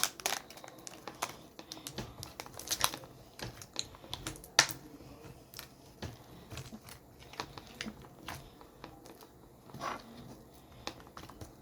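Irregular small clicks and taps from handling small plastic slime decorations, beads and charms. A few sharper clicks stand out among many faint ones.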